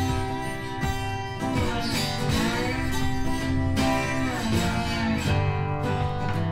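Background music led by guitar, with plucked and strummed notes, some of them bending in pitch.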